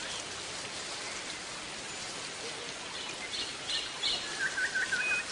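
Birds chirping over a steady hiss. A few short high chirps come about three seconds in, then a quick run of five or six wavering notes near the end.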